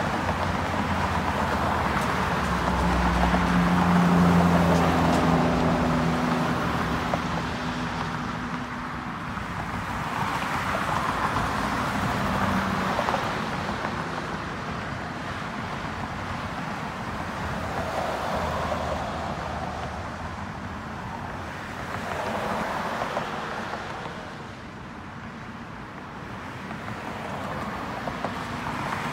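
Whelen WPS 2909 outdoor warning siren sounding a test tone, heard from a distance, its pitch band swelling and fading every several seconds. A low steady hum runs under it in the first half.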